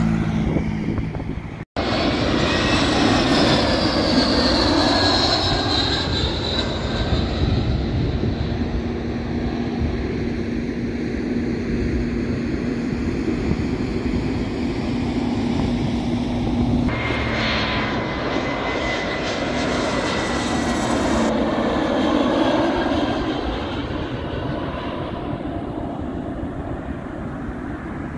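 Jet airliner on landing approach: a steady engine roar with a high whine that slowly falls in pitch. A brief dropout about two seconds in, and an abrupt change just past halfway, mark edit cuts.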